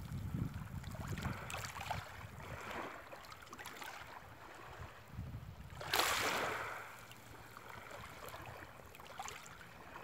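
Faint sea waves washing onto the shore, with a low rumble of wind on the microphone. One louder wash comes about six seconds in and fades over a second.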